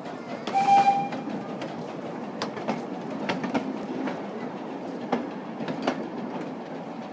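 A narrow-gauge steam locomotive gives a short whistle blast with a hiss of steam about half a second in; this is the loudest moment. Its open carriages then roll past with a steady low rumble, and the wheels click irregularly over rail joints and points.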